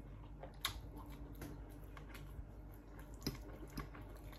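A few light, sharp clicks of metal forks against plates while eating, one less than a second in and two more a little after three seconds.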